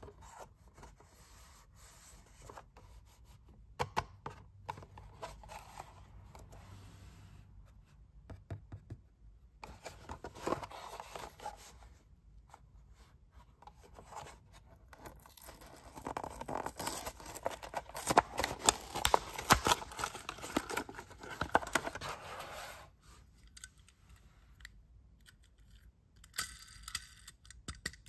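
A Hot Wheels blister pack being opened by hand: scratching and light clicks at the cardboard card and plastic bubble, then, about sixteen seconds in, several seconds of louder tearing and peeling as the blister comes away from the card.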